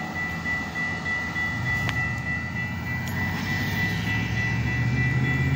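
Diesel locomotive engines of an approaching train, a low hum that rises slowly in pitch and grows louder near the end, with a steady high-pitched tone over it.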